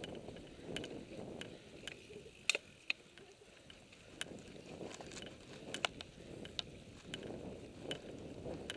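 Mountain bike rolling over a dirt singletrack: a steady rumble of tyres on the trail with irregular sharp clicks and rattles from the bike over bumps, the sharpest two about two and a half seconds in.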